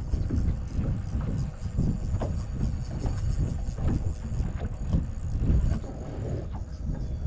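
Uneven low wind rumble on the microphone, with water slapping against the hull of a bass boat.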